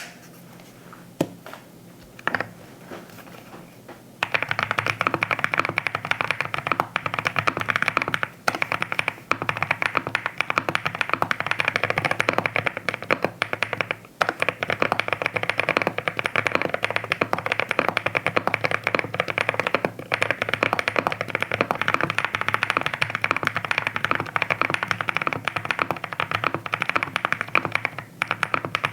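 Typing on a QK65 R2 custom mechanical keyboard with lubed Boba U4T tactile switches, an FR4 plate and HammerWorks CRP keycaps. A few separate key presses at first, then about four seconds in it becomes fast, continuous typing with a few short pauses.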